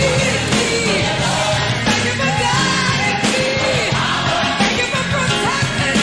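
Background music: a recorded song with a singer over a band.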